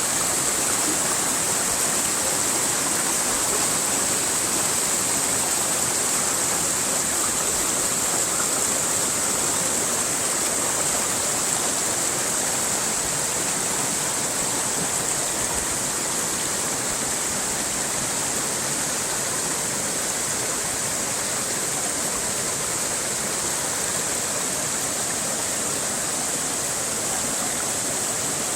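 Steady, unbroken rushing of flowing water, played as white noise for relaxation.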